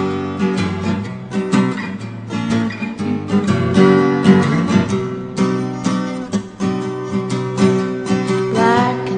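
Steel-string acoustic guitar strummed, playing a run of chords with no singing over it.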